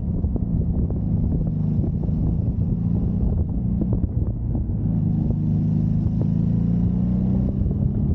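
A 1993 Honda Magna's V4 engine running under way. The note holds steady, climbs a little from about five seconds in, then eases back near the end.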